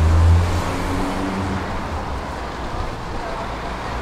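City street ambience: a low rumble, loudest in the first second and then easing, over a steady hum of distant traffic, with passers-by's voices in the background.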